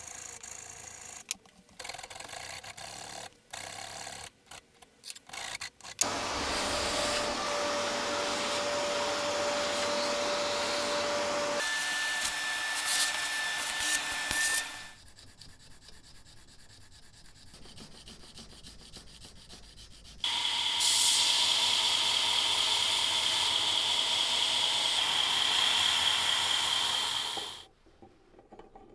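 A hand file rasping in separate strokes across a knife's wooden handle scales clamped in a vise. This is followed by a power tool running steadily in two long stretches, with a quieter lull between them.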